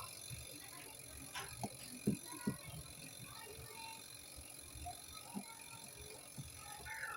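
Faint scattered knocks and clicks of hands refitting a washing machine's drain valve parts, with a few sharper taps about two seconds in.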